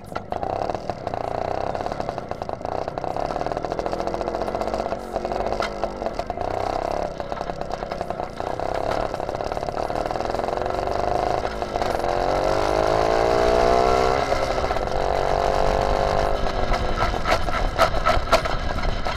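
Homemade go-kart's small engine, running cold, pulling away from idle and running under load. Past the middle the pitch climbs for about two seconds, then drops. Near the end it runs uneven and clattery while the gearbox refuses to downshift.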